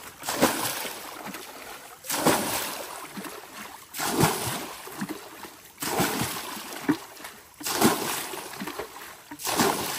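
Water being bailed out of a fish pond with buckets: a splash and slosh about every two seconds, six in all.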